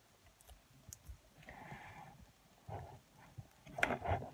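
Sticky slime being stretched and pressed by hand in a plastic container: a run of soft squelches and sticky clicks, loudest near the end.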